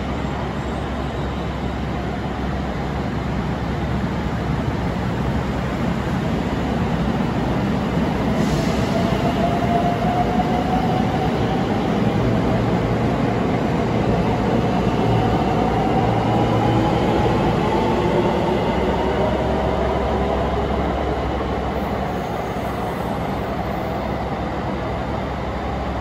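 521 series electric multiple unit pulling away from a platform: the whine of its traction motors climbs steadily in pitch as it gathers speed, over the rumble of its wheels on the rails. The sound swells as the cars pass close by, then eases.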